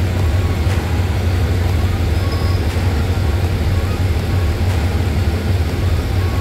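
Diesel locomotive engine running with a steady, deep hum, a passenger train rolling slowly out of the platform beside it.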